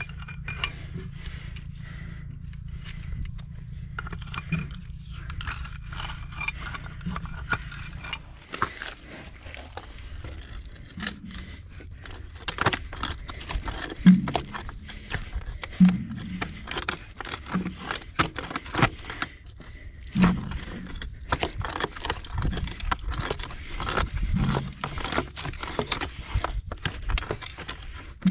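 Hand work on a water-line pack-joint fitting in a muddy hole: scraping, clicks and knocks of pipe wrenches and fittings, with several short grunts. A low steady hum stops about eight seconds in.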